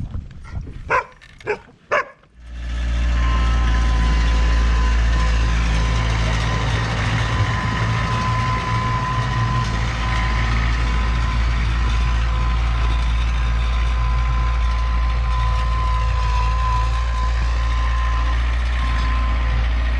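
Three short animal calls in the first two seconds, then a vehicle engine comes in at about two seconds and runs steadily at idle with a constant whine.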